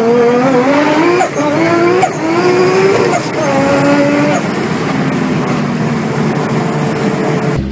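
Tuned turbocharged car engine accelerating hard, its note climbing in several quick steps with short breaks between them, as through rapid gear changes. After about four seconds it settles to a steadier, lower drone.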